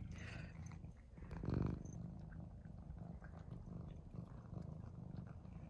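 Domestic cat purring steadily close to the microphone while licking tuna from fingers, swelling briefly louder about one and a half seconds in.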